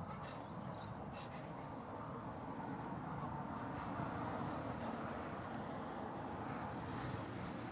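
Fendt 724 tractor's diesel engine running steadily under load while pulling a Kverneland six-furrow plough.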